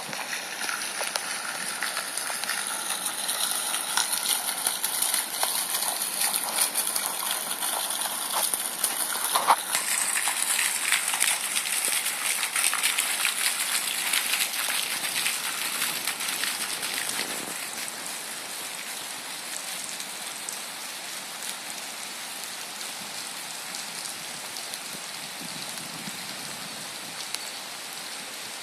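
Rain falling, an even patter of many fine drops, easing off to a softer level about two-thirds of the way through.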